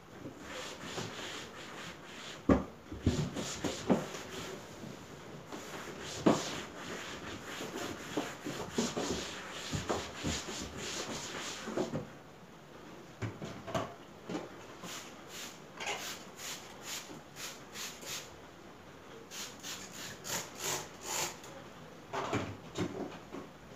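Cloth wiping and scrubbing back and forth over wooden door frame and wall panelling, with irregular sharp knocks and taps against the wood, the loudest a few seconds in.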